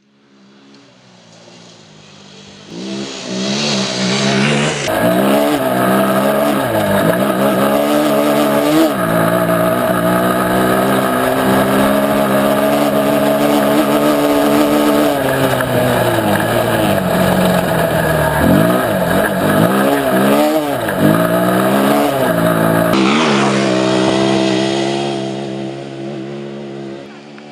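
Quad engine running hard, its pitch rising and falling again and again as it revs and eases off. It fades in over the first few seconds and drops away near the end.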